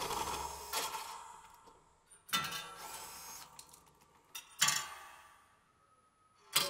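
Bandsaw blades of a motor-driven kinetic sound sculpture being struck: a few sharp, irregularly spaced metallic hits, each ringing out and fading over a second or two.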